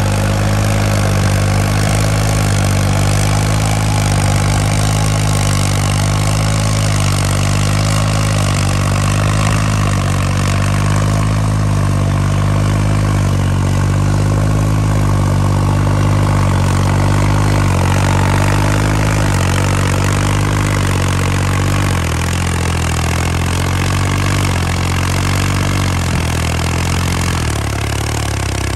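New Holland 3630 tractor's three-cylinder diesel engine, fitted with a modified injection pump and turbo, running hard under load as it pulls a cultivator through hard ground. Its note is steady, sagging in pitch a few times in the second half as the engine is pulled down.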